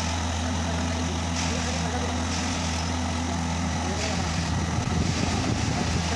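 Duomatic track tamping machine at work packing ballast under the sleepers: its diesel engine runs with a steady low drone, and a rushing noise swells and fades about every second or so as the tamping unit works.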